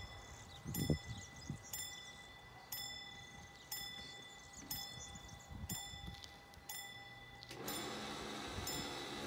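Level-crossing warning bell striking about once a second while the crossing signals are lit. About three-quarters of the way through, a steady hum joins it as the barrier drives start lowering the booms.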